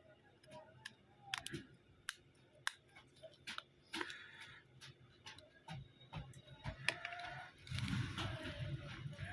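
Irregular light clicks and taps, as of small repair tools handling a mobile phone, about one or two a second, with a louder rustling noise starting near the end.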